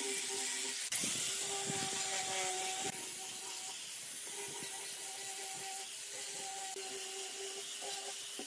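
A small electric grinder fitted with a sanding disc runs with a steady whine, sanding wood with a rough hiss. The sound changes abruptly about a second in and again about three seconds in.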